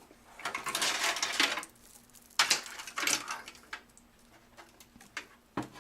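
Power supply unit being set into a metal computer case: sheet metal scraping and clattering for about a second, then a sharp metallic knock with brief rattling, and a few light clicks near the end.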